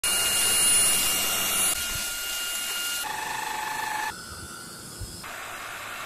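AGARO Supreme cordless stick vacuum cleaner running: a rushing hiss with a steady high motor whine. It changes abruptly in tone and loudness several times and drops to a quieter level about four seconds in.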